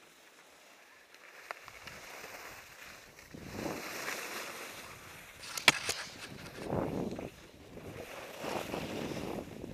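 Snowboard edge scraping and hissing over packed, tracked snow, swelling and fading in several surges as the board turns. A single sharp knock about five and a half seconds in.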